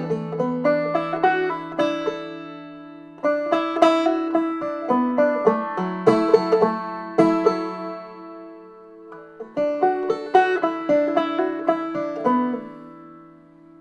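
A banjo being picked, playing a tune in phrases. The notes ring out and fade in short lulls about three seconds in, around eight to nine seconds, and near the end.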